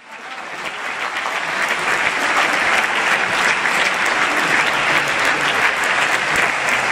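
Audience applauding, a dense mass of many hands clapping that swells over the first couple of seconds and then holds steady.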